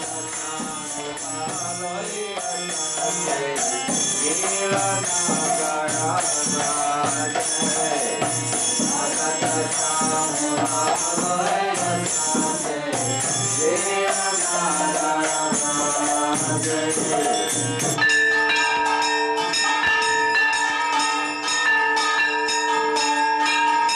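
A man singing a devotional kirtan to mridanga drum, with a steady high jingle of small cymbals over it. About 18 seconds in it cuts to temple bells ringing for aarti, struck over and over with several steady tones.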